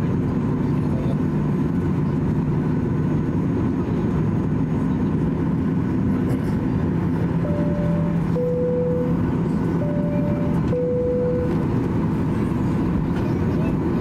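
Boeing 737-800 cabin during taxi: a steady drone of engines and air conditioning. About halfway through, a two-tone cabin chime sounds high then low, twice over.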